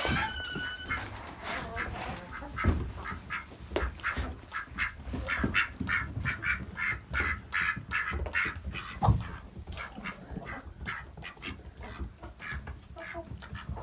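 Backyard chickens and a mallard duck calling at feeding time: a quick run of short quacking and clucking notes, with one longer held call in the first second.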